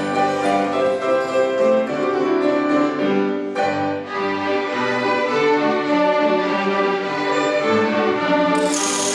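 A violin ensemble playing a melody in sustained bowed notes. A steady high hiss joins near the end.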